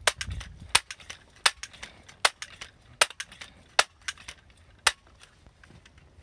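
Gamo M4 TAC multi-pump .177 pellet rifle being pumped for a ten-pump shot: a sharp clack with each stroke of the pump lever, about one every three-quarters of a second, with fainter clicks in between.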